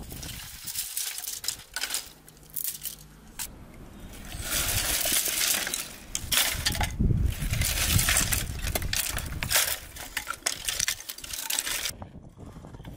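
Dry sticks and brushwood being gathered by hand from the ground: wooden sticks knocking and clattering together while twigs crackle and rustle. It starts with scattered knocks and grows into a dense clatter about four seconds in, then stops near the end.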